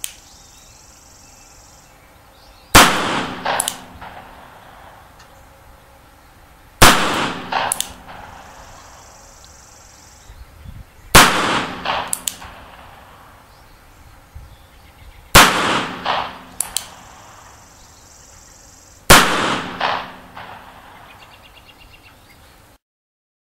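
Nagant M1895 revolver firing five single shots of 7.62x38R, about four seconds apart, each followed under a second later by a weaker second crack or clang.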